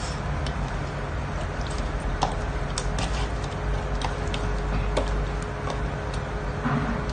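Bare hands squishing and turning fish pieces in a thick, oily spice marinade in a bowl: irregular wet squelches and small clicks. A steady background hum runs underneath.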